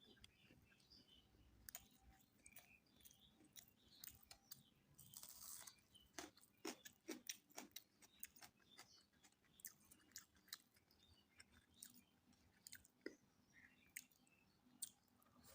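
Faint, close-up mouth sounds of someone eating mutton biryani: many quick, wet clicks of chewing, with a few sharper crunches about midway.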